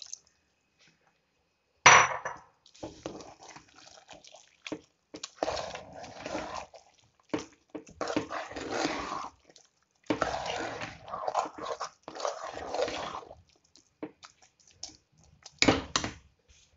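Steel ladle stirring and mashing soft cooked rice and dal with coconut milk in an aluminium pressure cooker, in bouts of scraping and sloshing. A sharp knock of the ladle on the pot comes about two seconds in, and a few more knocks come near the end.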